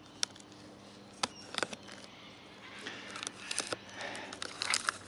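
A knife cutting through packing tape and plastic on a cardboard parcel, with the plastic pouch and box being handled: a scatter of sharp clicks and short scratchy crinkling, busiest in the second half.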